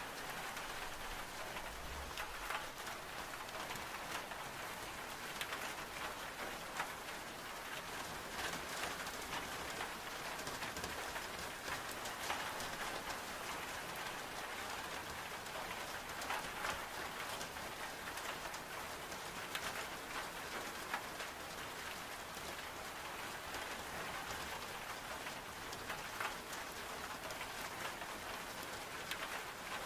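Steady heavy rain on window glass, a constant hiss with scattered small ticks and pops, mixed with the crackle of a wood-burning stove.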